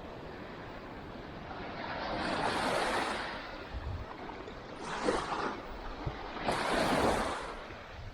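Surf breaking on the beach: three swells of wave wash, each rising and falling over about a second, with a steady hiss of sea between them.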